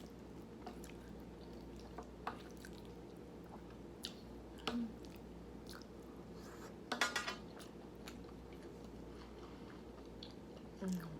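Close-miked chewing and wet mouth sounds of someone eating a mouthful of food, with scattered small clicks and smacks. About seven seconds in comes a brief, louder run of rapid clicks.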